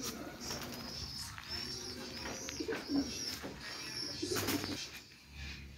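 Birds calling: a high, thin call repeated several times, each under a second, with a couple of lower calls about three and four and a half seconds in.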